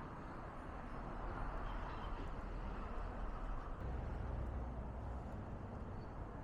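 Fallen leaves and thin twigs burning in a Takibi Dondon MP350 garden-waste burner: a steady noise of fire. A low rumble swells briefly about four seconds in.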